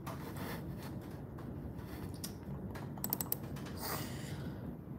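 A quick run of four or five light clicks about three seconds in, followed by a short rushing noise, over a steady low rumble.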